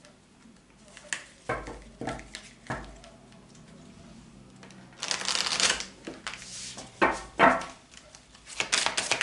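A deck of cards shuffled by hand: a few separate taps and flicks at first, then bursts of shuffling about five seconds in and again near the end.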